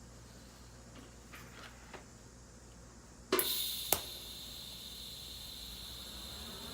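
A few faint taps, then about halfway in a TIG welding arc strikes on stainless steel tube with a sharp crackle and settles into a steady, even hiss.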